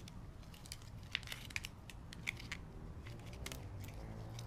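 Battery pack's plastic wrapping being pulled apart by hand: scattered small crackles and clicks over a steady low hum.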